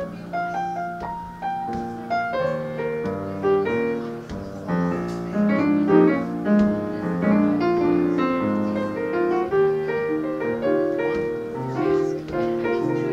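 Grand piano played solo: a blues piece, with many notes struck in quick succession and ringing over one another.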